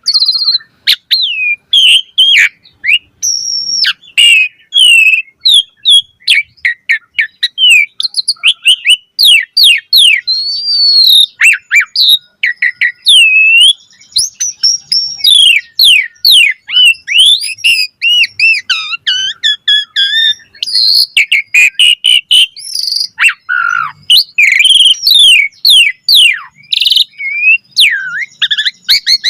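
Asian pied starling (jalak suren) singing a fast, unbroken stream of varied whistles, chirps and rising and falling pitch glides.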